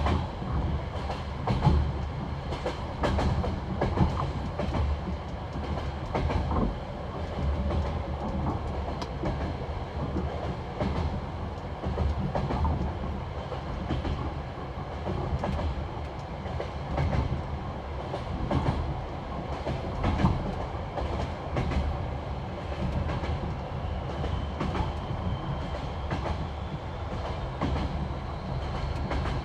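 Passenger train wheels clattering over the rail joints of jointed track at speed: a continuous clickety-clack of knocks over a steady rumble, heard from inside the carriage. A faint high whine rises near the end.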